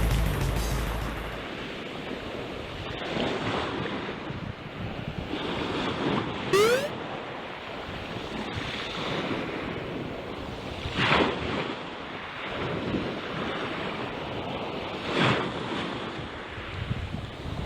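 Sea waves washing onto the shore, with wind buffeting the microphone; two bigger wave surges come in the second half. About six seconds in, a short rising whistle-like sound cuts through.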